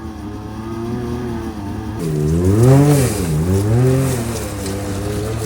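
Side-by-side UTV engine running, then revved hard twice from about two seconds in, its pitch rising and falling each time, with a rush of noise, before settling back to a steady drone.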